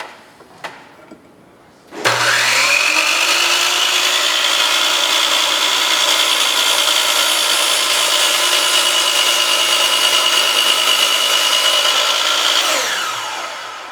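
Electric miter saw motor switched on about two seconds in, spinning up with a rising whine, then running at a steady high pitch. Near the end it is released and winds down with a falling whine.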